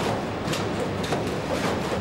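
Factory noise from an automotive resistance spot-welding line: a steady machine hum and hiss with irregular sharp metallic clanks.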